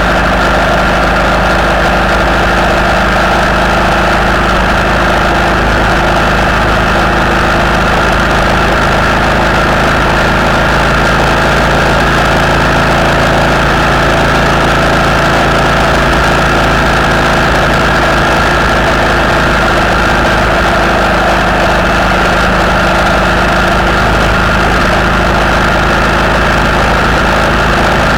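Vehicle cruising at steady motorway speed: a constant engine drone with road and wind noise, its pitch and loudness unchanging throughout.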